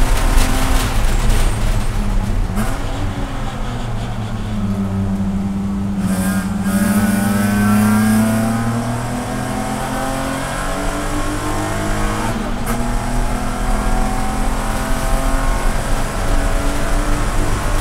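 BMW Spec E46 race car's straight-six engine heard from inside the cabin. It slows off the throttle for a slow corner a few seconds in, then accelerates hard out of it, rising in pitch, with a brief break near two-thirds through before it rises again.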